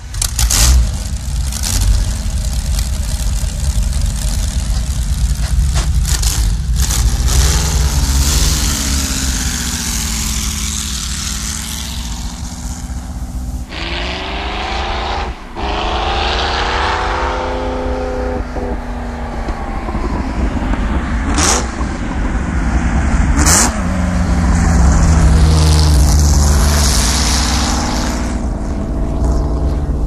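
The Auto Union Typ C's supercharged 6-litre V16 engine running and being revved, its pitch rising and falling several times. Two sharp cracks come in the later part.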